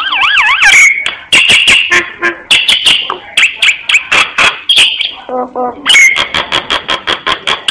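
Myna singing a varied, chattering song: wavering whistles at the start, then a rapid run of sharp clicking and harsh rasping notes, with a brief lower, voice-like note a little past five seconds.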